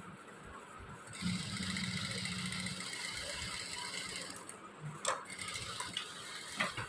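Sewing machine running in one steady stretch of about three seconds, starting about a second in, stitching a shoulder seam. A few short clicks of the machine and fabric being handled follow.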